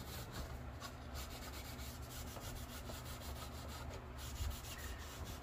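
Cloth rubbing wood oil into a sanded wooden frame: a faint, continuous rubbing of cloth on wood, with a low steady hum beneath.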